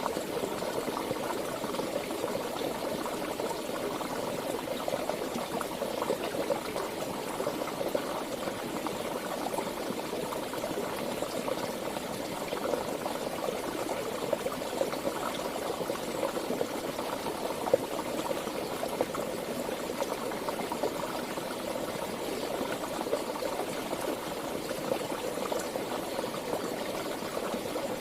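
Water of a stream flowing steadily, an even rushing, bubbling sound that does not change.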